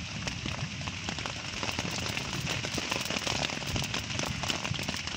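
Heavy rain pattering on a tent, heard from inside: a dense, irregular spatter of small taps over a steady hiss.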